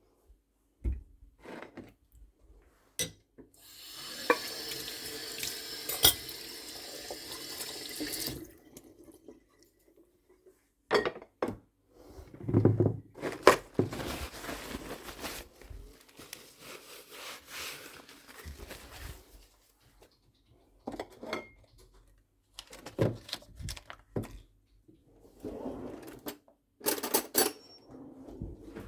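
Kitchen tap running into the sink for about four seconds, a steady splashing rush of water that shuts off. It is followed by scattered knocks and clatter of things being handled.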